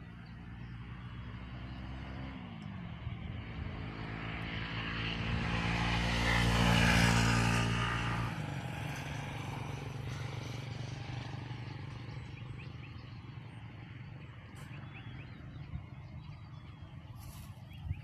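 An aircraft passing overhead: its engine sound swells over several seconds to a peak about seven seconds in, drops in pitch as it goes by, then fades away.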